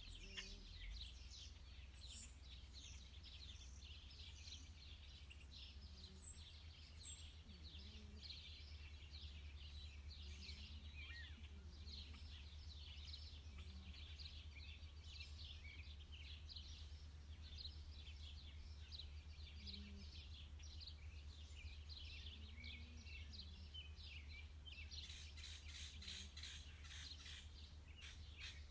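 Faint, continuous high-pitched chirping of birds, many short calls overlapping and busier near the end, over a low steady rumble.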